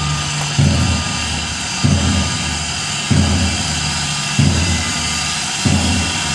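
Stationary 1913 0-4-0 steam locomotive with a steady hiss of steam. Its steam-driven air pump works in slow, regular strokes about every second and a quarter.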